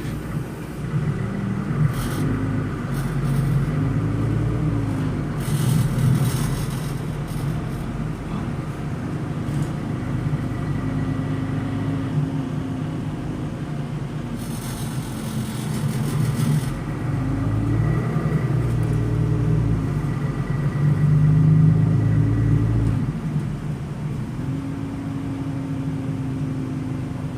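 Solaris Urbino 12 LE city bus under way, heard from the passenger compartment: its DAF inline-six turbodiesel rises and falls in pitch several times as the ZF Ecolife six-speed automatic takes it through the gears. Twice there is a few seconds of hiss. Engine vibration sets fittings in the cabin rattling, a fault the owner calls annoying.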